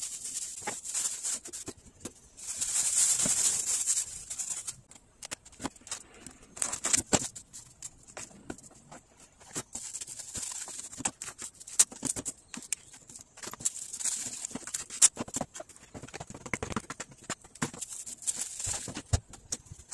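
Clear plastic wrap and gloved hands crinkling and rustling while ground meat is wrapped into portions, in uneven spells with many small clicks and taps between them.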